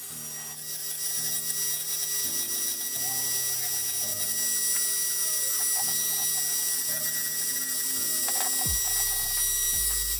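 A Dremel rotary tool running with a steady high whine as its small bit carves wood around raised letters. Background music with a bass line that changes pitch every second or so, and a falling swoop near the end.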